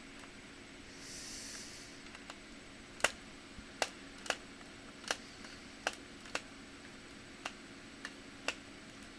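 A dozen or so sharp, irregular clicks and taps from the laptop's plastic and metal parts being handled during repair, with a short hiss about a second in.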